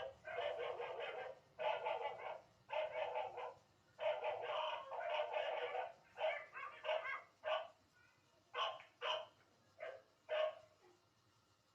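Dog barking repeatedly in long runs of quick barks, which then turn into shorter, sparser single barks and stop shortly before the end.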